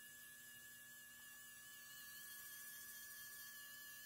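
RP900A 3D printing pen's small filament-feed motor running very quietly, a faint steady hum with a thin high whine, extruding filament; about 50 decibels a few inches away.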